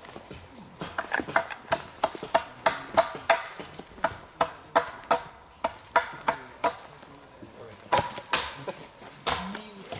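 Hatchet chopping into an upright wooden plank: quick, sharp strikes about three a second, in runs with short pauses between them.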